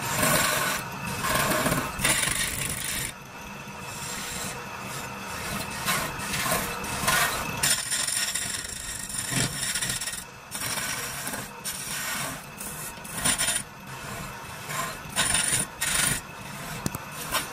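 A hand turning tool cutting into a spinning wooden stair baluster on a wood lathe, the shavings coming off in irregular scraping bursts of varying length over the steady hum of the running lathe.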